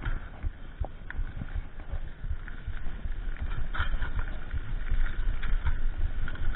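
Mountain bike ridden fast over a dirt singletrack: a low rumble of tyres on the trail with frequent rattling clicks and knocks from the bike over the bumps.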